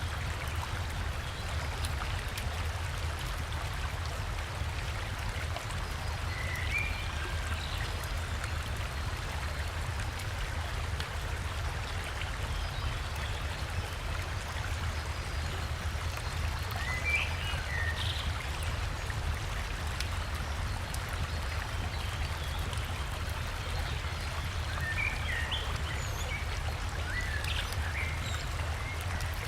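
River water flowing steadily, with a deep rumble underneath. Short bird chirps come through a few times: about 7 seconds in, around 17 seconds, and again several times near the end.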